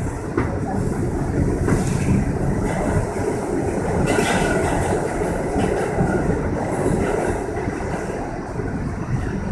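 R68 subway car running through a tunnel, heard from inside the car: a steady rumble of wheels on the rails and car noise. A faint wheel squeal comes in briefly about four seconds in.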